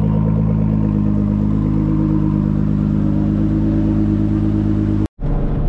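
Twin-turbocharged Nissan 350Z's VQ35DE V6 running at a steady engine speed, its pitch holding level. The sound drops out for a split second about five seconds in.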